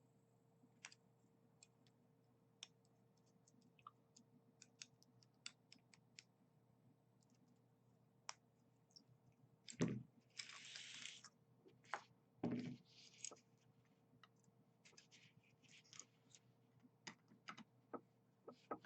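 Printed plastic support material being snapped and picked off a 3D-printed part by hand: scattered small clicks and cracks, with two louder snaps about halfway through and a few seconds later, the first followed by a brief scraping hiss.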